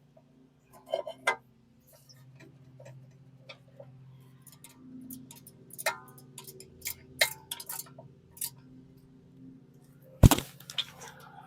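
Metal clicks and clinks of a brake caliper bracket being fitted to the rear hub and its bolts run in with hand tools, with one sharp metal knock about ten seconds in. A steady low hum runs underneath.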